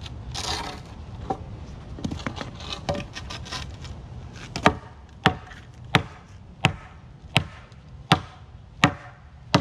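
A 2x4 board laid across reseated patio pavers being struck to tamp them level with the surrounding patio. Lighter knocks and scraping come first, then a steady run of eight sharp blows, about three every two seconds, through the second half.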